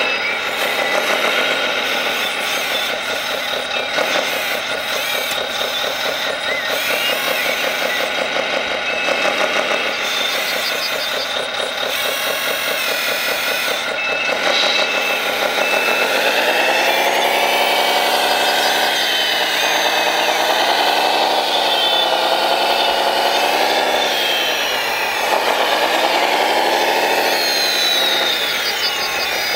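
1/14-scale radio-controlled construction model running, with a steady engine-like drone and motor whine. About halfway through, the whine rises and falls in pitch several times as the motors speed up and slow down, then settles near the end.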